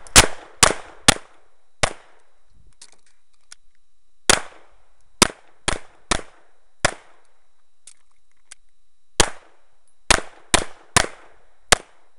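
Pistol shots fired in quick strings of two to four, each a sharp crack with a short echo, with pauses of a second or two between strings: a shooter engaging targets from several positions during a timed USPSA stage. Faint clicks sound in some of the pauses.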